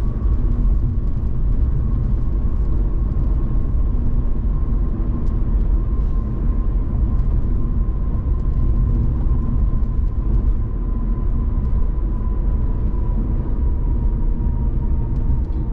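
Steady in-cabin road noise of a car cruising on a concrete highway: a low rumble from the tyres and engine, with a faint steady whine that sinks slightly in pitch.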